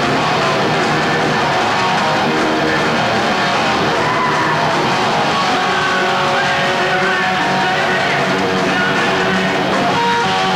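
Heavy metal band playing live on stage: loud electric guitar with drums, running steadily through.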